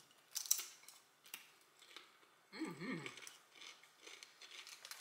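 Quiet chewing of a soft veggie and flaxseed tortilla chip, with a few crisp crackles and small clicks, the loudest about half a second in. A short hummed "mmm" of tasting comes about two and a half seconds in.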